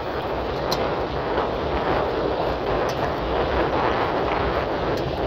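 Steady rush of wind over a phone microphone on a bicycle riding fast along a road, with a low rumble underneath.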